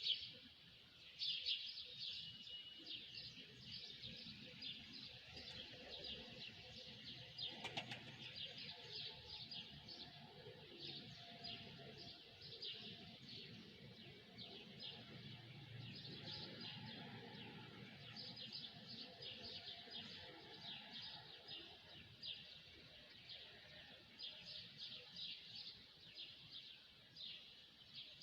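A flock of small birds chirping together: a dense, continuous chorus of quick, high chirps, over a faint low background rumble.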